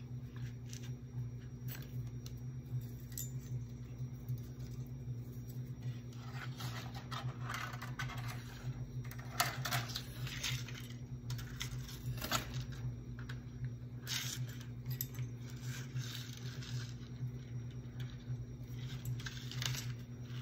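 Thin rusted craft wire being pulled off its coil and wrapped around a fabric-covered candy cane: light rustling and small metallic clicks, busiest in the middle, over a steady low hum.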